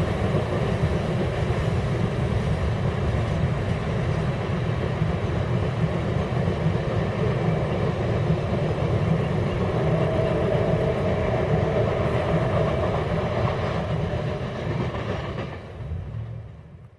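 Loaded rock train's freight cars rolling past, a steady low rumble of steel wheels on rail that fades out near the end.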